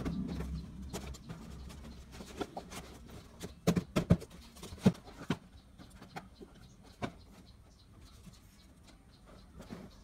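Empty cardboard milk cartons and corrugated cardboard being handled and set down on a cutting mat: scattered light knocks and rustles, with a quick run of knocks about four seconds in and a single knock a few seconds later.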